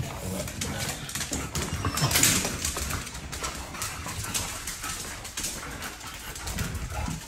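Dog noises from a young American bully among scattered clicks and taps, with a louder rustle about two seconds in.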